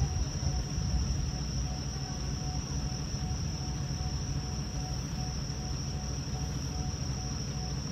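Steady chirring of crickets, a constant high-pitched drone, over the low, even rumble of a diesel railcar idling.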